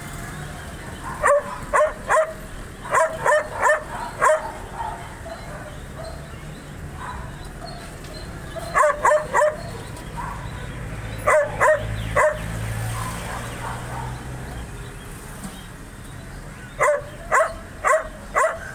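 A dog barking in quick bursts of three to five barks, with pauses of a few seconds between bursts, over a low steady hum.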